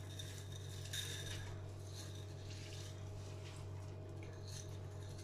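Soaked lentils sliding out of a bowl and pattering softly onto sliced onions in a cooking pot, in a few faint rustling spurts, over a steady low hum.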